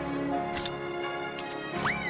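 Cartoon background music with held tones, with a few sharp click sound effects and a short whistle-like rising glide near the end.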